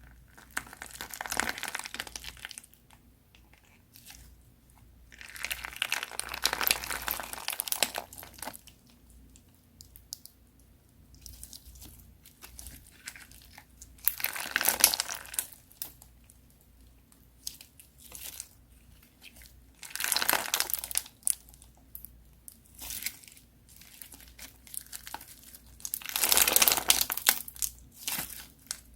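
Crunchy slime being squeezed and pressed by hand, crackling and crunching in about five louder bursts, with quieter crackles in between.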